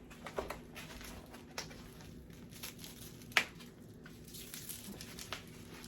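Faint crinkling and rustling of plastic packaging being unwrapped from a new infant car seat, with scattered light ticks, the sharpest about three and a half seconds in.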